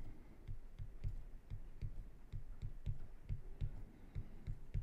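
Faint low thumps at an even pace of about three to four a second, with faint short ticks above them.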